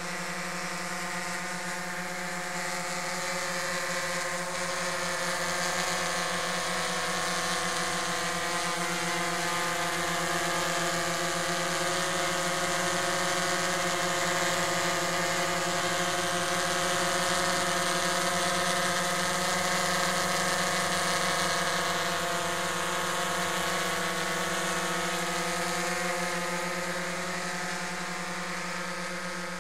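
DJI Phantom quadcopter hovering, its four propellers giving a steady buzzing whine that gets louder in the middle as it comes close overhead.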